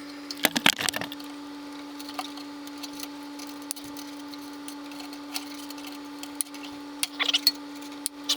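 Short crackling and rustling handling sounds as parts of a push mower are worked on by hand, about half a second in and again near the end, over a steady low hum.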